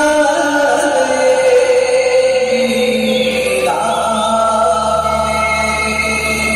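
Dance music with a chorus of voices chanting long held notes, a new chord coming in about four seconds in and a low drone swelling near the end.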